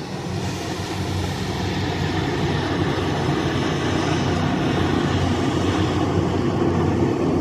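A passenger boat's engine running steadily, a low drone that grows a little louder over the first few seconds and then holds.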